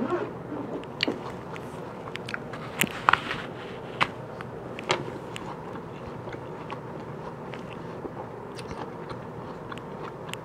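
Granny Smith apple being bitten and chewed close to the microphone. Crisp, sharp crunches come every second or so through the first half, then give way to softer chewing.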